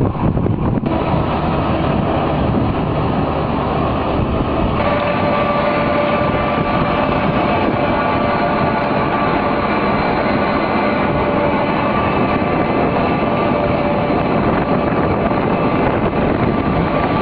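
Tractor-drawn feed mixer wagon running as it unloads mixed feed through its side discharge chute: a loud, steady mechanical din of engine and drive, with a steady tone joining about five seconds in.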